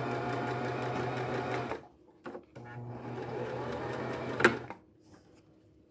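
Electric sewing machine stitching through layers of denim: it runs for nearly two seconds, stops briefly, then runs again for about two seconds. A sharp click near the end of the second run is the loudest moment, just before the machine stops.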